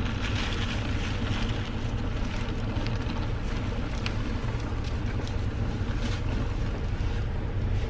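Vehicle engine running, a steady low rumble heard from inside the cabin, with a few faint clicks.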